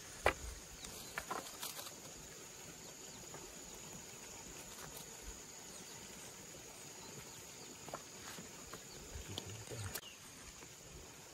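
Bamboo poles knocking together as they are lifted and laid on the grass: one sharp knock just after the start, then scattered lighter knocks, over a faint steady high hiss.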